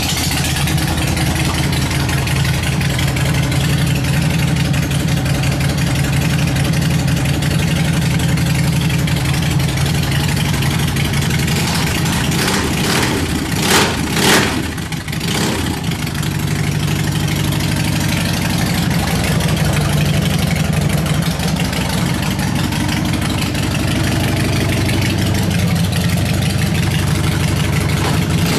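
Harley-Davidson V-twin motorcycle engine idling steadily shortly after a cold start. About halfway through there are two brief, sharp, louder bursts.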